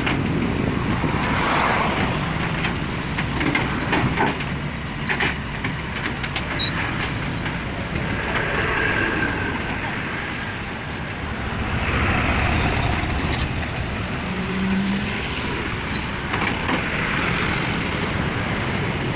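Heavy diesel engine running steadily, with a few sharp clanks early on and brief hisses later.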